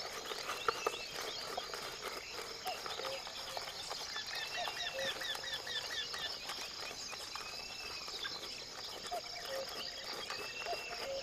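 Forest ambience: several birds calling and singing, with a quick run of repeated chirping notes about four seconds in, over a steady high insect buzz.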